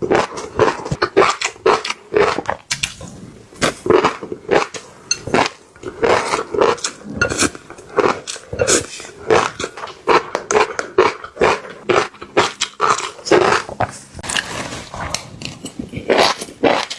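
Close-up chewing of crunchy fish roe: rapid, irregular crackling crunches with wet mouth sounds between them.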